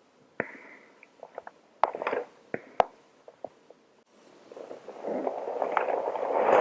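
Clicks and crackling rustles of a chemical protective suit being handled close to the microphone, then a long breath sound that swells in from about four seconds and keeps growing.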